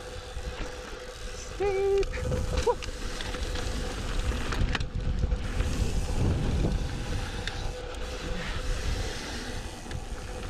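Mountain bike riding down dirt singletrack: tyres rolling over dirt and loose rock, the bike rattling and knocking over bumps, with wind rushing over the microphone. A short held pitched tone sounds about two seconds in.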